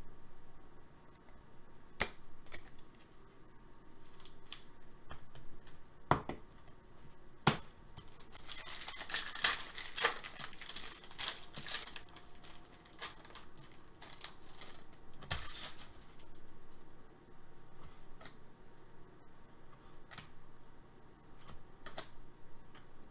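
Trading cards and packs being handled: a few sharp clicks, and a stretch of crinkling and tearing from about eight to twelve seconds in as a foil card pack is torn open.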